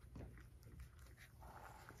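Faint sounds of a cat eating from a ceramic bowl: scattered small clicks of chewing and licking.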